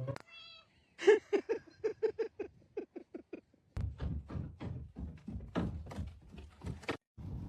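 A cat giving a quick run of short, evenly spaced meows, about five a second, followed by a noisier stretch of repeated knocks and thumps.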